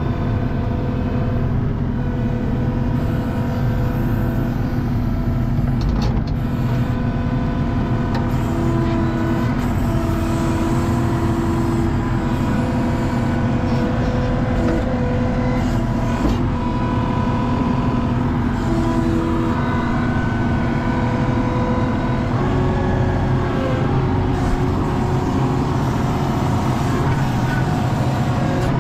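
Skid steer engine running steadily under work, with whining tones that shift in pitch now and then.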